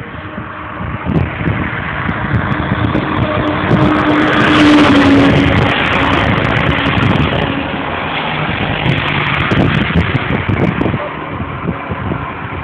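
A vehicle crossing the bridge, its engine hum loudest and falling slightly in pitch about four to five seconds in, over a steady rushing noise.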